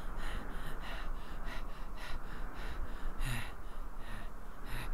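A voiced cartoon character panting hard while running, with short gasping breaths about twice a second over a steady background hiss and hum.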